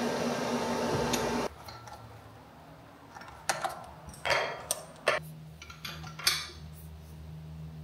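Steady electrical hum of a collaborative robot arm being powered down, cutting off abruptly about a second and a half in. Then a few sharp clicks and knocks as hands take hold of the arm's joints.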